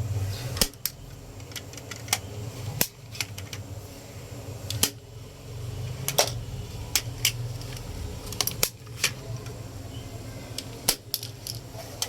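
Toy gun shots and hard plastic action figures being knocked over: a dozen or so sharp clicks and clacks at irregular intervals, over a low steady hum.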